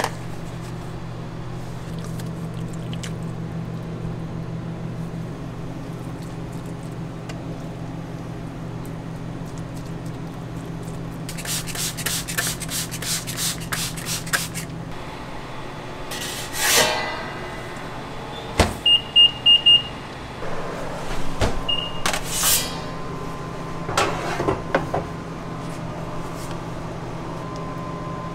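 Steady low hum of kitchen equipment under a run of quick brush strokes as a silicone brush spreads butter over sliced brioche. After that come a few knocks and short electronic beeps, four in a quick row and then one more, like an appliance's control panel being set.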